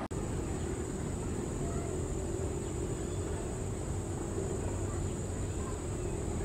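Steady high-pitched insect chirring over a low, steady rumble from the distant jet engines of a Boeing 737-800 on approach.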